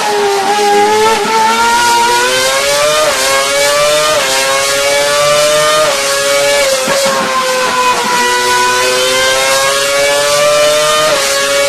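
Formula 1 car engine running at high revs, one continuous high-pitched note that dips at first, then climbs in small steps, sags slightly and climbs again.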